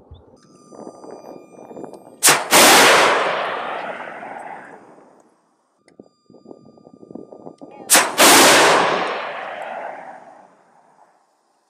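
Two FIM-92 Stinger missile launches, about two and eight seconds in: each a sharp pop of the launch motor ejecting the missile, then a split second later the loud rush of the flight motor igniting, fading over two to three seconds as the missile flies away. A steady tone, the launcher's seeker lock-on tone, sounds before each launch.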